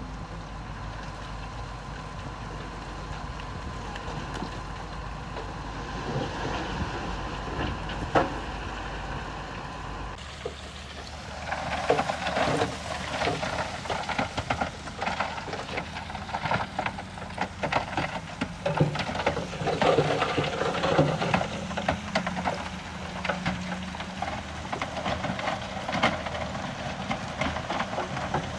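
Diesel engine of heavy earthmoving machinery running steadily. About ten seconds in the sound changes to a dense, irregular clatter of stone and metal over the engine, as stone is pushed or tipped.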